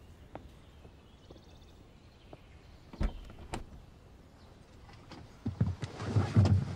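Faint scattered ticks, then two sharp knocks about three seconds in, followed by a louder run of rustling and thumps near the end, like a door and someone moving about.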